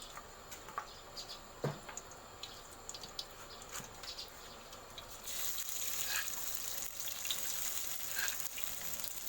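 Light clicks and scrapes, then about five seconds in a steady sizzling hiss starts: pounded Thai curry paste of shallot, garlic, chilli, lemongrass and galangal frying in a hot, dry wok.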